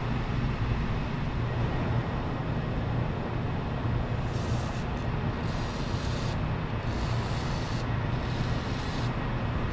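Steady low workshop hum. From about four seconds in, a series of short hissing bursts comes and goes roughly once a second.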